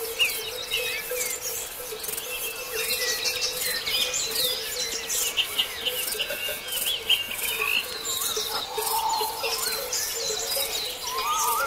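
Dawn chorus of several songbirds: many short chirps, trills and warbles overlapping, with a lower whistled call twice in the second half and a fine high pulsing underneath.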